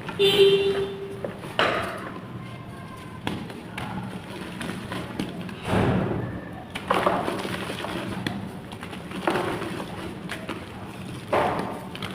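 Chalk clay blocks being crushed and crumbled, a series of soft crunches about every second or two, the loudest just after the start.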